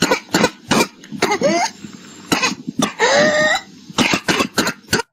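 Whooping cough (pertussis) paroxysm: fast runs of short coughs, each run ending in a high-pitched whoop as the breath is drawn in, twice. This is the typical cough of the paroxysmal stage of the disease.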